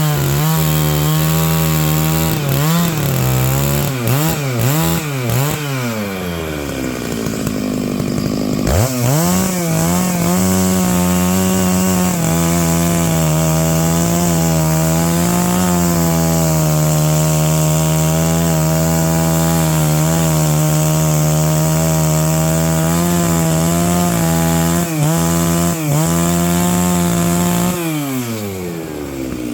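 Stihl MS 660 two-stroke chainsaw cutting pine logs for firewood. It runs at full throttle, its pitch dipping several times in the first few seconds, drops to idle around six seconds in, revs up again near nine seconds and holds steady through a long cut, then falls back to idle near the end.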